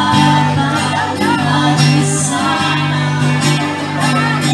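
Music with singing over steady held bass notes.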